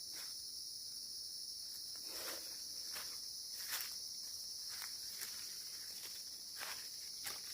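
Steady high-pitched drone of forest insects, with irregular footsteps and scuffs on leaf litter and rock as someone picks their way along.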